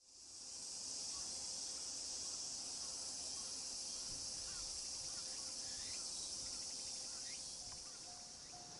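Insects shrilling steadily in a high, even drone. Near the end a railway level-crossing warning bell starts ringing, a clanging tone repeating about twice a second.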